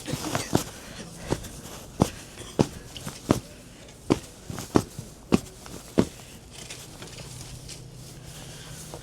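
Footsteps, about three steps every two seconds, that stop about six seconds in. A faint low steady hum continues after them.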